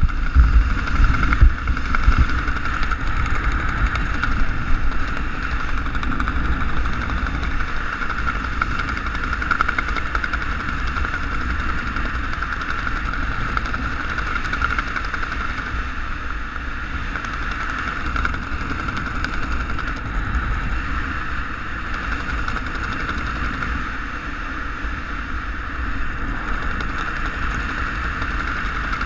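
Wind rushing over a GoPro Hero 3 camera in its housing during a descent under an open parachute: a steady rush with low buffeting, heaviest in the first couple of seconds.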